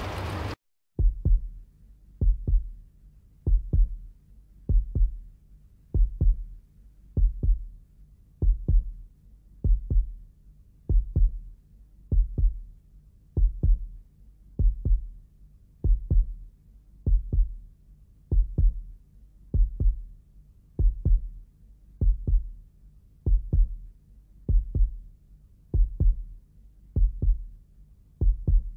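Heartbeat sound effect: slow, steady double thumps, about one beat every 1.2 seconds, starting about a second in.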